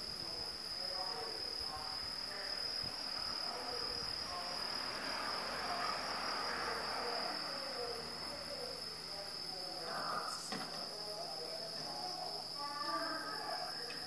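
Crickets trilling: a steady, unbroken high-pitched insect chorus.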